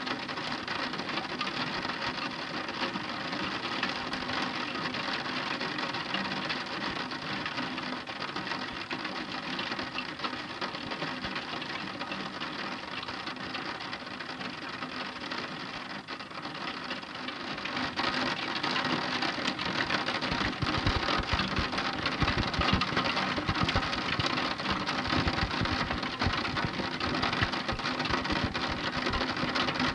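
Heavy rain falling, a dense, steady crackle of countless drops. It grows louder about two-thirds of the way through, with dull low thumps mixed in.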